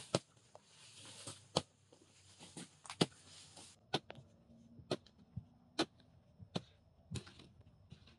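Hoe blade chopping into loose sandy soil, a sharp strike about once a second, with the hiss of dry soil being scraped and tossed between strikes.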